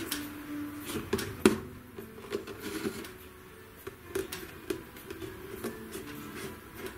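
Irregular light knocks and clicks of hand work on an antique voltaire armchair's springs and frame during spring lashing, with a cluster of sharper knocks about a second in.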